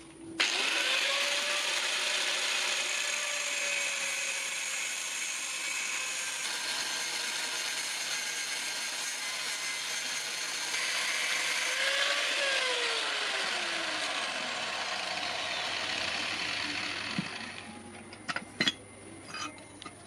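A geared tool or machine running with a dense whirring noise for about seventeen seconds. Its whine rises as it starts and sinks slowly as it winds down, and it is followed by a few light knocks near the end.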